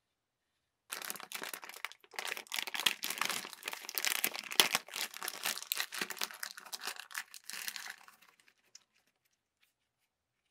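Clear plastic bag crinkling as it is handled and pulled open to get the batteries out. The crackling starts about a second in and stops at about eight seconds.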